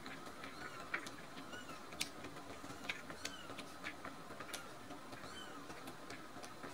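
Kitten suckling milk from a baby bottle: irregular small wet clicks and smacks of its mouth on the nipple, about one or two a second, with faint short high squeaks between them.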